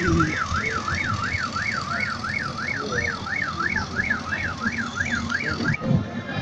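Emergency vehicle siren in a fast yelp, its pitch rising and falling about three times a second, cutting off suddenly near the end.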